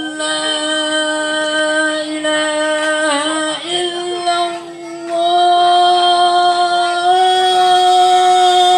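A single voice chanting one long held note with a steady pitch and many overtones, stepping a little higher about three and a half seconds in and falling away at the end.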